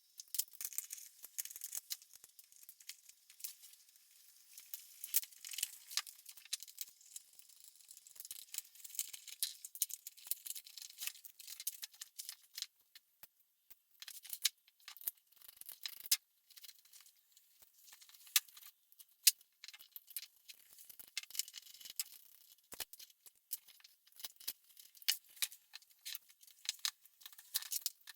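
Irregular small clicks, taps and light rattles, like tools and small metal or plastic parts being handled during hands-on repair work.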